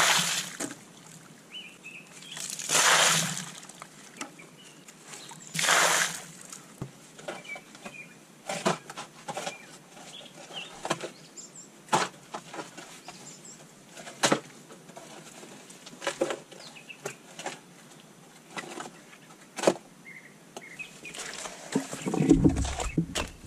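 Digging in clay soil with shovels and a pickaxe: three rushes of loose soil dumped out, about three seconds apart, then many short sharp scrapes and knocks of blades biting the ground, with heavier thuds near the end. Birds chirp faintly.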